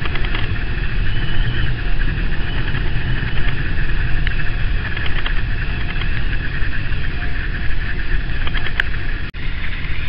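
Strong wind buffeting the microphone in a steady heavy rumble, over the hiss of surf breaking on a rock breakwater and shingle. The sound cuts out for an instant about nine seconds in.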